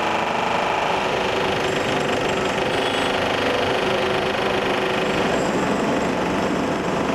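Handheld electric demolition hammer chiselling into a concrete slab: a steady, rapid hammering rattle with no pause.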